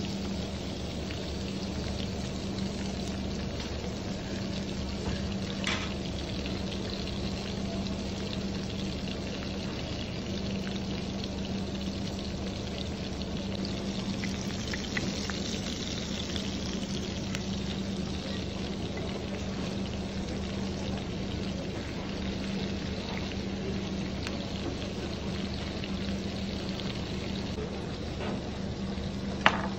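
Prawns, garlic and butter sizzling and bubbling in a hot clay pot, a steady frying hiss over a steady low hum. One sharp click near the end.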